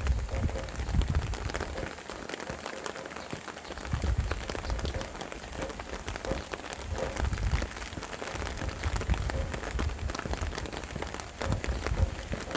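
Steady rain with many individual drops pattering on a surface. Gusts of wind rumble on the microphone every few seconds.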